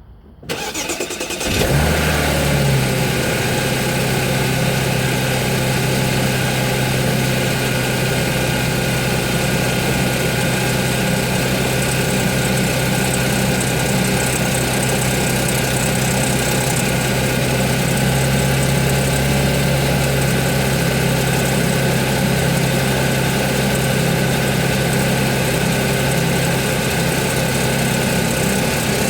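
Audi 3.0 TFSI supercharged V6 cold-started: the starter cranks briefly, the engine catches about a second and a half in, flares, and settles into a steady idle. It rattles and clatters during the cold start, the sound of its timing chains.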